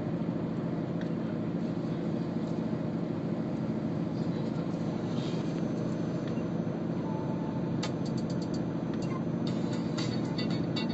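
Steady low rumble of a car on the move, with a scattering of short clicks in the second half.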